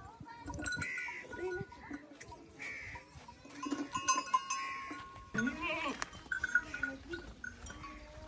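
Farm animals bleating in several short calls, with a longer rising-and-falling bleat about five and a half seconds in. A metal tether chain rattles and clinks around four seconds in.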